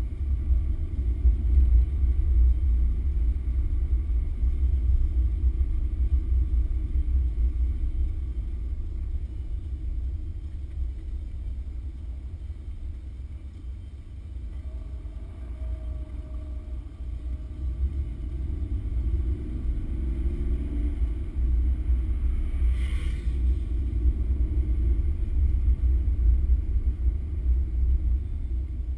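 Porsche 911's flat-six engine and tyres on a wet road, heard from inside the car as a steady low rumble. The car eases off about halfway through, then the engine revs rise as it picks up speed again; a short click sounds shortly after.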